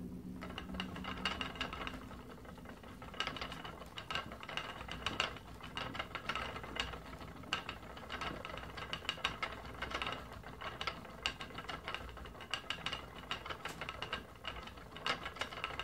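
Wooden spinning wheel turning while yarn is spun, giving a continual run of small, irregular clicks and knocks from its moving parts.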